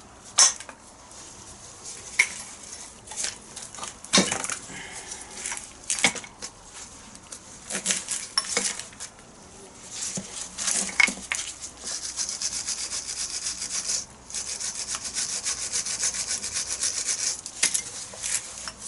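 Hammer and punch driving a rust-seized pin out of a classic Mini rear radius arm: scattered sharp metal knocks, then a long run of rapid light strikes in the second half, broken briefly about two-thirds of the way in.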